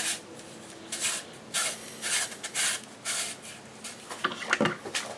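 Faceplate and retaining ring being fitted and turned onto an Apeks ATX regulator second stage by hand: a run of short rubbing, scraping strokes, roughly one every half second.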